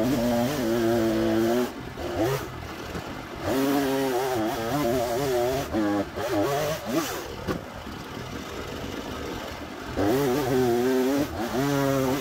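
Sawmill's 14 hp gas engine idling steadily, with a second small engine revving in four short bursts that rise and fall in pitch.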